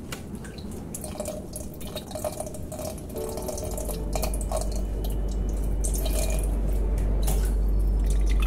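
Water dripping and trickling in small, irregular drops. About halfway through, a deep steady tone fades in and keeps growing louder.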